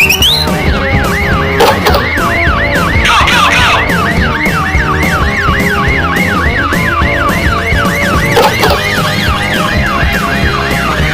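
Siren sound effect: a fast wail that rises and falls about three times a second, repeating steadily, over background music.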